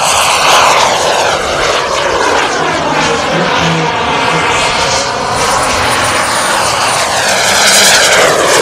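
Small turbine engines of Paritech Natrix RC model jets flying past, a loud rushing whine that swells and fades as the jets pass. It is loudest about half a second in and again near the end.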